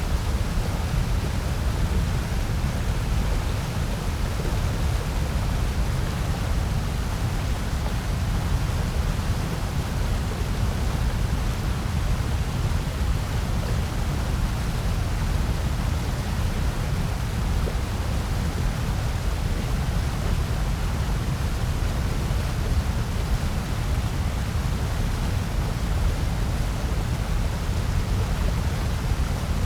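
Steady synthetic noise sold as white noise, unchanging throughout, with most of its weight deep in the bass and thinning out toward the treble.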